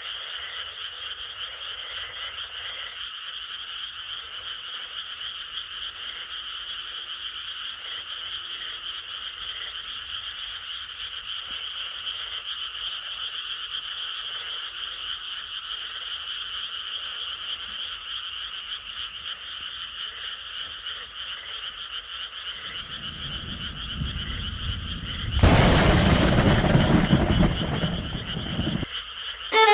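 Dense, steady chorus of frogs calling. About 23 seconds in, a rushing noise swells into a loud blast that lasts a few seconds near the end.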